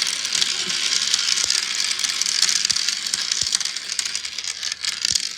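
Many tiny 6 mm balls rattling and clicking steadily as they roll through a small 3D-printed marble run, a dense stream of small clicks with an occasional low knock.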